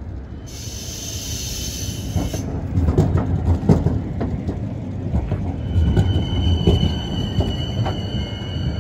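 A 71-911 low-floor tram rolls past close by with a low rumble. A short high hiss comes about half a second in, then the wheels click repeatedly over the track. A steady high-pitched whine joins from about halfway.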